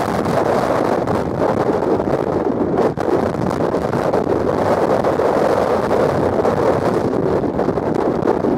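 Strong gusty wind buffeting the microphone as a loud, steady rush of noise, with a brief lull about three seconds in.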